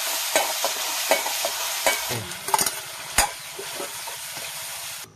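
Food sizzling in hot oil in a metal wok over a wood fire, a steady hiss, while a metal spoon stirs it and clinks sharply against the pan several times. The sound cuts off suddenly near the end.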